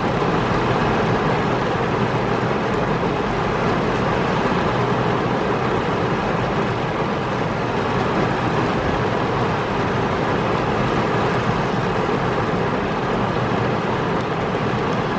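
Heavy rain pelting a car's windshield and roof, heard from inside the car: a steady, dense hiss.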